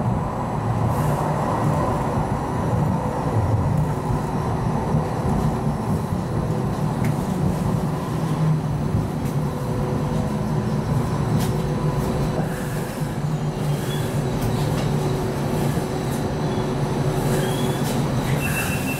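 Hong Kong Light Rail Phase I car heard from inside the cabin while running: a steady hum of motors and wheels on the rails as it pulls into a stop. A high beeping starts near the end.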